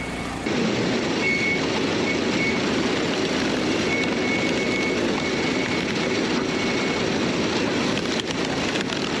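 Wood-splitting machine running: a steady, dense mechanical din of engine and hydraulics, with a thin high tone that comes and goes several times.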